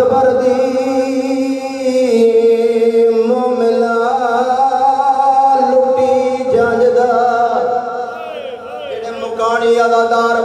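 A man's voice chanting in long, held melodic phrases into a microphone, with ornamented turns in pitch.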